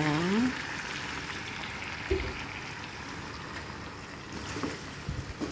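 Pan of chicken feet cooking in adobo sauce with white vinegar: a steady hiss of sizzling, bubbling liquid, with a couple of soft knocks.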